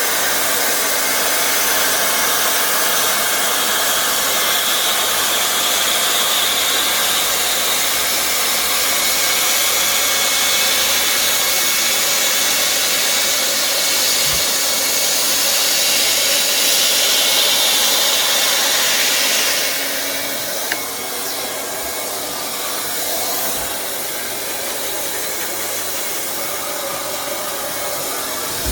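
Hot-air plastic welder blowing steadily while welding plastic panels; its hiss drops somewhat in level about two-thirds of the way through.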